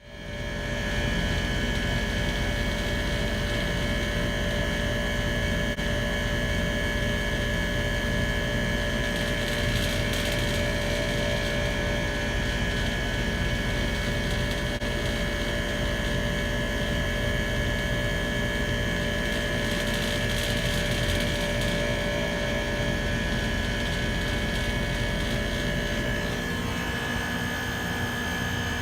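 A machine running steadily with a low rumble and several steady whining tones; one of the tones drops out near the end.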